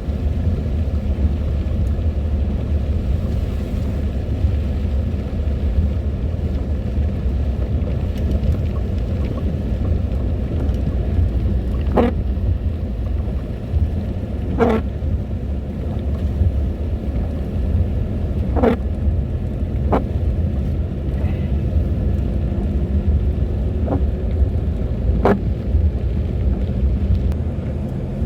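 A vehicle runs with a steady low rumble, with a few sharp knocks in the second half, about five or six of them.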